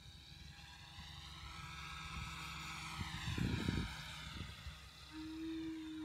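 Electric 550-size RC helicopter (XL Power 550) flying by, its motor and rotor whining; the pitch dips and rises again as it passes closest. A burst of low rumble about three and a half seconds in is the loudest part.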